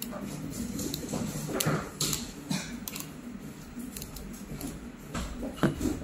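Sharp plastic clicks and taps from Lego remote-control parts being handled: a cable plug pressed onto the IR receiver and the receiver snapped onto the battery box, the loudest click near the end. A faint low steady hum sits underneath.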